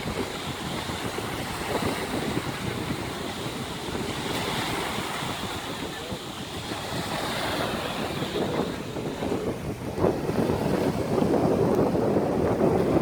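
Small sea waves washing ashore, with wind buffeting the microphone; the surge grows louder about ten seconds in.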